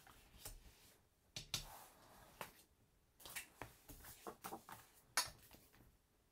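Cardstock being handled on a work mat: scattered light rustles and taps as pieces of card are picked up, turned and set down, with one sharper tap a little after five seconds in.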